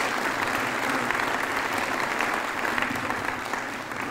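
Audience applauding, the clapping tapering off slightly near the end.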